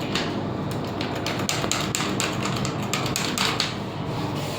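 Lift car travelling down its shaft: a steady low hum, with a cluster of sharp clicks and rattles through the middle.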